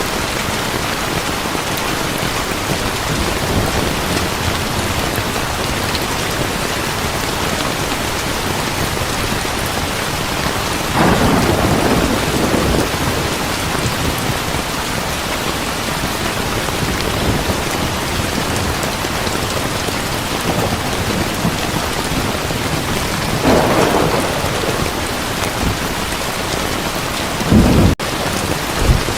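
Heavy rain falling steadily, with thunder rumbling twice, about a third and again about four-fifths of the way through, and a short, sharper clap of thunder near the end.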